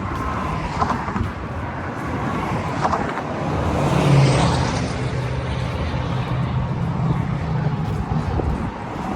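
Motor vehicle engine and road noise, swelling to its loudest about four seconds in, then settling into a steady low hum.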